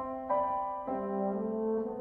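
French horn playing a melody of held notes, moving to a new note several times, with grand piano accompaniment.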